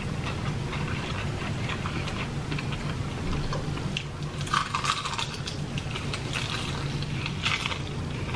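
Close-up chewing and crunching of crispy fried chicken, heard as irregular crackles that come thickest about halfway through and again near the end, over a steady low hum.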